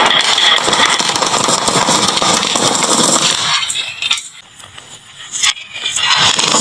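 Many marbles clattering down a wooden marble-run slope in a dense stream of clicks. The clatter thins out about two-thirds of the way through, then picks up again near the end.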